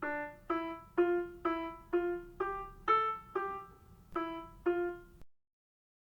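Piano-sounding keyboard playing a slow single-note melody, about two notes a second, each note dying away. It stops abruptly a little after five seconds in.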